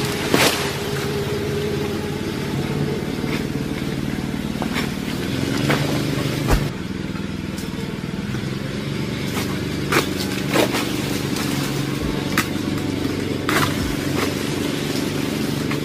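A small engine running steadily at an even speed, with sharp knocks every second or two on top of it.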